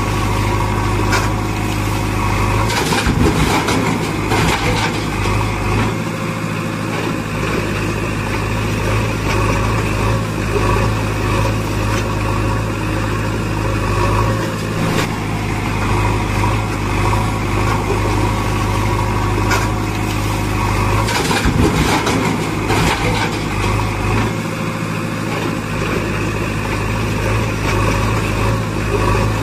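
Tractor engine running steadily, a deep unchanging drone; the same stretch repeats about every 18 seconds, as in a looped engine sound effect.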